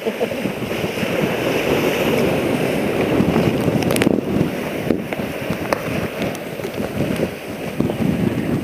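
Wind buffeting the microphone over choppy open water, with waves splashing and sloshing; a couple of brief knocks about four and five seconds in.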